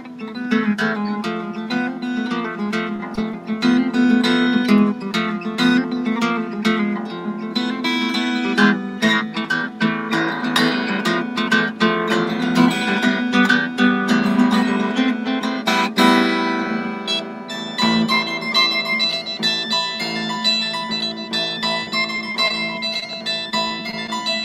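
Harp guitar with extra super-treble strings playing a fingerpicked solo instrumental in 13/8 time, over a steady ringing bass line. About two-thirds of the way through there is one sharp stroke across the strings, and after it bright high treble notes ring out.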